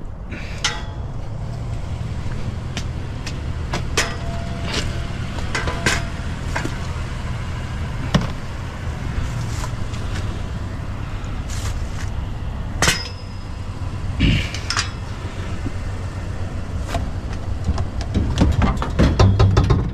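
A vehicle engine idling steadily, with scattered clicks and knocks of scrap being handled and a few louder clanks.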